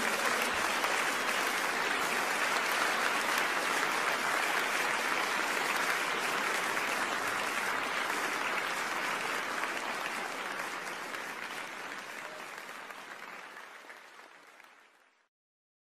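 Audience applauding, steady at first, then fading out to silence near the end.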